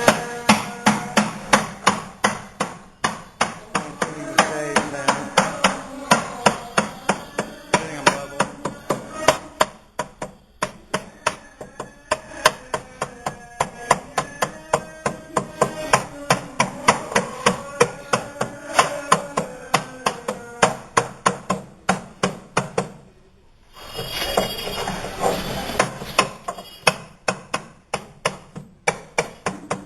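Steel hoops being hammered down onto a wooden barrel to tighten the staves: sharp metallic strikes in a steady train, about two to three a second, with a brief pause a little over 20 seconds in.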